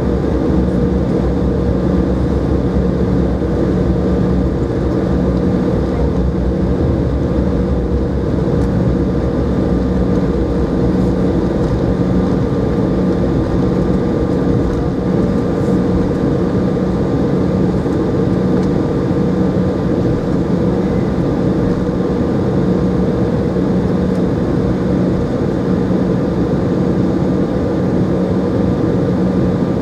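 Cabin noise inside an Embraer 190 taxiing: its CF34-10E turbofan engines running at low taxi power, a steady rumble with several steady humming tones.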